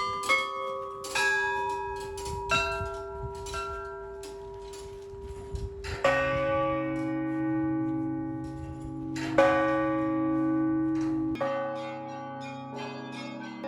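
Church bells being rung: smaller bells struck in a quick pattern, then a large bell strikes about six seconds in and again about three seconds later, its deep hum lingering under the smaller bells.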